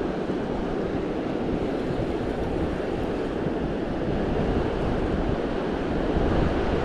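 Steady rush of flowing river water, with wind gusting on the microphone.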